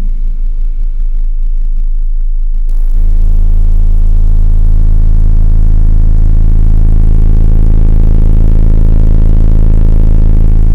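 A wall of AE GR-18F subwoofers in a VAZ 2110, powered by a Kicx Tornado 2500.1 amplifier, plays a very loud sustained deep bass tone for an SPL measurement. Pulsing bass comes first, then about three seconds in a steady low note with a dense buzz of overtones takes over and holds.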